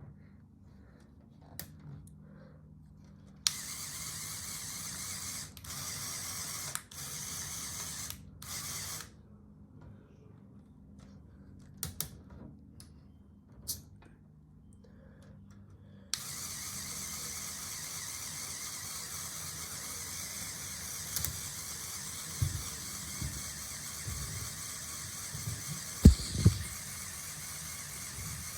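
Geared mechanism of a Lego Technic model running with a steady whir, starting and stopping several times, then running continuously, with a few clicks and low knocks from handling.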